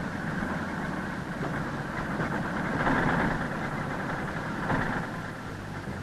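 Potato harvester machinery running steadily with an engine rumble and mechanical clatter. It grows louder for a moment about halfway through and again a little later.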